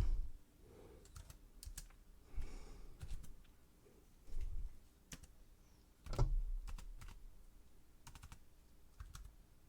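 Computer keyboard being typed on: small clusters of key clicks with short pauses between them.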